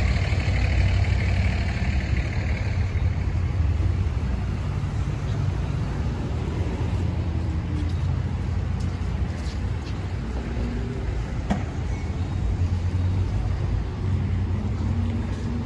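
Steady low rumble of road traffic and idling vehicles around a gas station parking lot, with a rushing hiss in the first few seconds that fades away.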